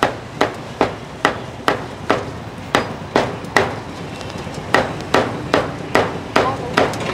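A cleaver chopping roast beef on a thick round wooden chopping block, with steady knocks about two or three a second and a short pause a little past the middle.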